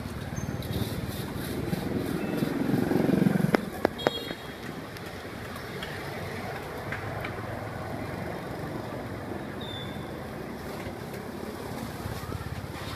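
Street traffic noise that swells louder about three seconds in, then settles to a steady level, with a few sharp clicks just after the swell.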